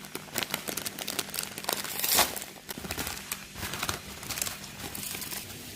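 Crinkling plastic packaging of an instant noodle packet being handled, in many sharp crackles, with one louder tearing rip about two seconds in.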